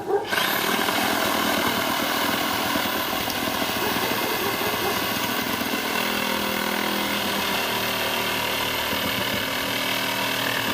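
Saw running steadily while cutting through a tree trunk, starting up right at the beginning and carrying on without a break.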